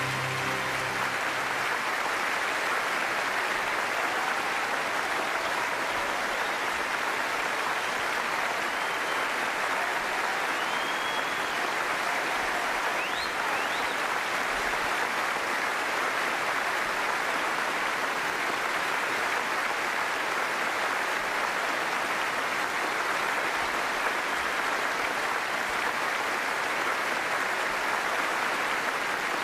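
A large theatre audience applauding steadily in a standing ovation, as the last of the music dies away in the first second.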